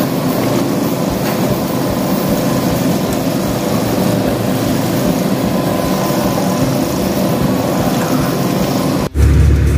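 Loud, steady rushing noise of running machinery. About nine seconds in it cuts off suddenly and gives way to the low, steady drone of a car engine.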